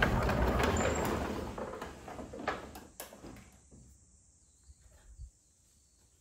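Wooden sliding door rolling open along its track: a rumbling scrape that fades away over about three seconds, with two sharp knocks near its end.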